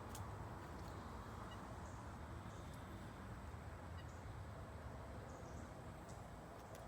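Faint, steady outdoor background noise with a low rumble and no distinct event.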